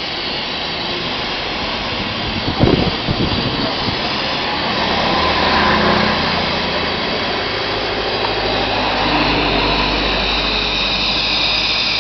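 A steady, loud rushing hiss, with a few sharp knocks about two and a half to four seconds in and a low hum joining about halfway.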